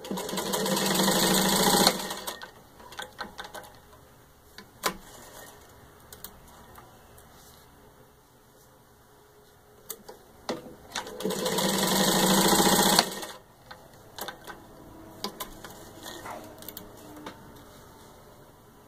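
1939 Singer 15-91 sewing machine stitching through three layers of leather in two short runs of about two seconds each, each growing louder and then stopping abruptly. Scattered clicks and knocks fall between the runs.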